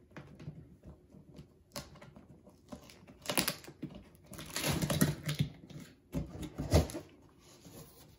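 Cardboard kit box being opened by hand: sticker seals peeled off and the lid lifted, giving scattered rustles, scrapes and clicks, with the loudest cardboard scuffs and knocks about five and almost seven seconds in.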